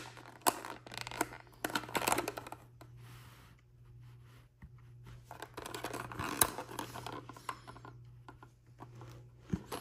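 Small toy packaging being handled and opened by hand: scattered clicks and scrapes, then a stretch of rustling with a few more clicks about five to seven seconds in.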